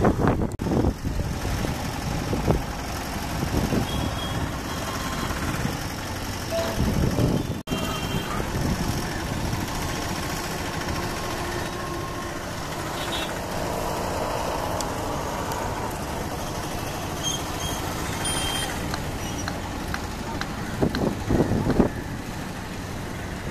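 Steady rumble of a Boeing 777-300ER's GE90 jet engines as the airliner begins its takeoff roll, heard from a distance. The sound drops out for an instant about eight seconds in.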